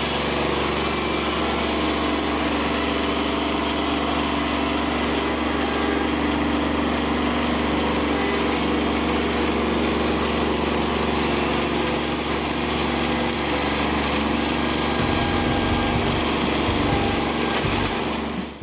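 Kubota B2601 compact tractor's three-cylinder diesel engine running steadily while working, its low engine note wavering a few seconds before the end. The sound cuts off abruptly at the end.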